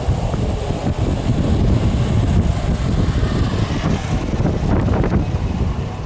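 1983 Ford Escort Mk3 1.1 driving past close by: its engine and tyres grow louder as it comes up and passes about four to five seconds in. Heavy wind buffeting on the microphone makes a loud low rumble throughout.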